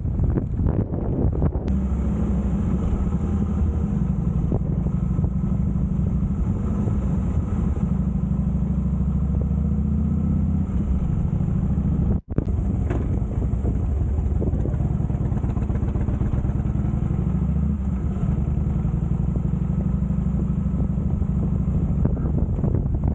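Harley-Davidson FLSTC Heritage Softail Classic's V-twin engine running steadily on the move. The sound drops out for an instant about twelve seconds in.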